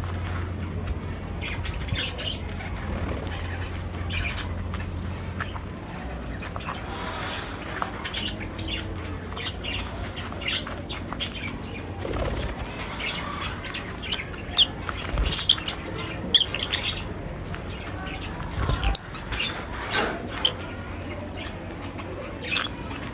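Lovebirds chirping and squawking in many short, sharp calls, with wing fluttering among them; the calls come in louder clusters in the second half. A low steady hum runs under the first six seconds or so.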